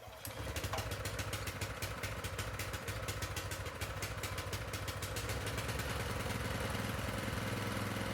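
Honda F501 rototiller's small single-cylinder engine, on choke, catching and then running steadily with a rapid, even beat of firing strokes.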